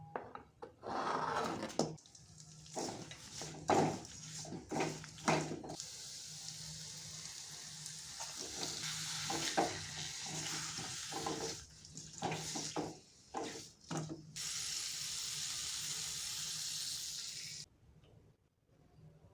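Stir-frying in a pan: a spatula scraping and knocking against the pan over a sizzle, then a steady frying sizzle that cuts off suddenly near the end.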